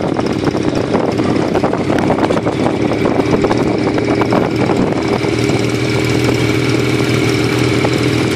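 Small motorcycle engine running steadily at a low cruising speed, with wind and road noise from riding alongside it.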